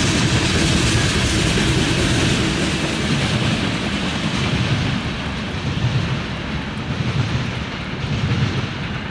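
Freight train cars, tank cars and a covered hopper, rolling past on the rails. The wheel and rail noise fades after a few seconds as the end of the train moves away.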